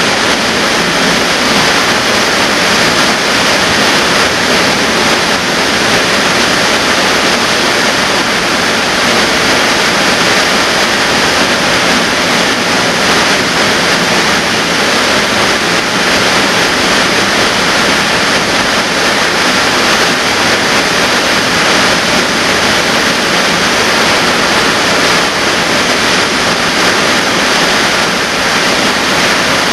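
Waterfall pouring into a rock pool: a loud, steady rush of falling water with no let-up.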